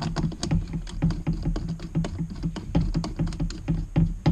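Quick, irregular small clicks and taps of hands fitting and threading a screw into an aluminium GoPro-style mount clamped to a rifle's fore-end.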